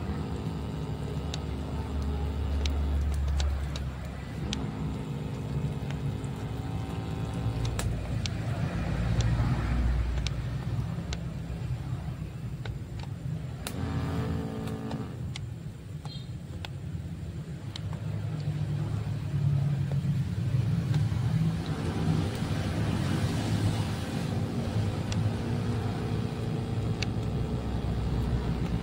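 A motor hums at a steady pitch in spells of a few seconds, cutting in and out several times, over a continuous low rumble.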